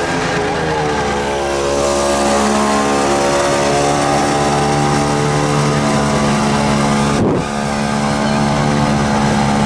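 Tractor engine running steadily at high revs. Its pitch wavers briefly about half a second in, and the sound drops out for a moment about seven seconds in.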